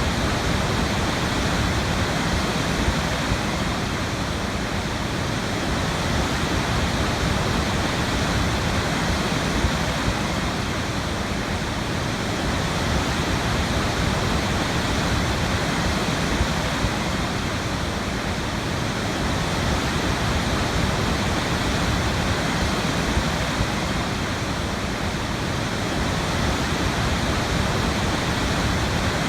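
Waterfall: water falling and rushing with a steady, even roar.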